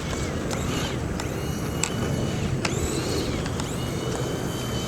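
Electric RC monster truck (Horizon Hobby AMP MT, on a LiPo battery) driving on dirt: its motor gives a high whine that rises and holds several times as it accelerates. A steady rumble of tyres over the ground runs underneath, with a few sharp clicks.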